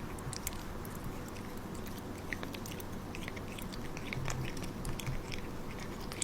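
A cat chewing a hard pet treat, with faint, irregular small clicks of its teeth biting into it.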